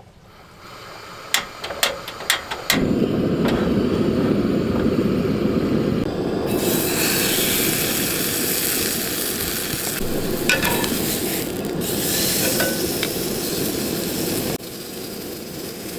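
A steak going into a hot oiled frying pan: a few clicks, then sizzling starts suddenly about three seconds in, turns hissier about six seconds in, and eases a little near the end.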